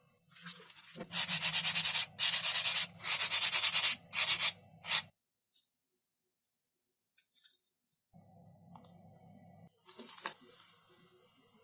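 Sandpaper rubbing on foam in quick back-and-forth strokes: five bursts of rasping, each up to about a second long, in the first half. Fainter handling sounds follow.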